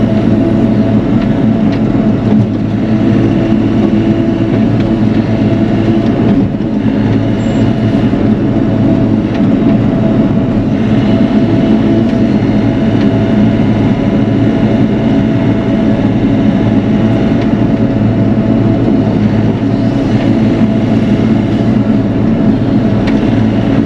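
Bobcat E42 mini excavator's diesel engine running steadily under heavy load, with its hydraulics working, as the machine tracks out of a crater hauling a large uprooted tree. The sound eases off briefly about six seconds in.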